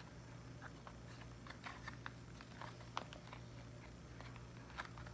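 Faint, scattered clicks and taps of plastic play-dough toys being handled and pressed, over a low steady hum.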